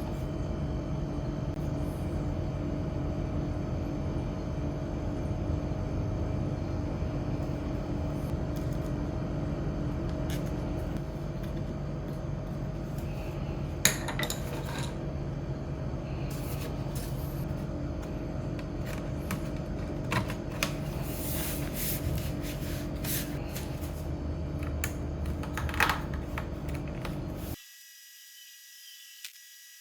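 Scattered small clicks and scrapes of a screwdriver and small metal parts being handled while working on a laptop, over a steady background hum. The sound cuts off abruptly near the end.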